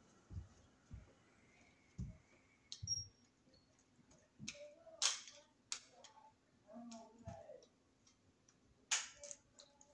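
Faint scattered knocks and clicks: soft low thumps about once a second at first, then a few sharp clicks, the loudest about five seconds in and again near the end.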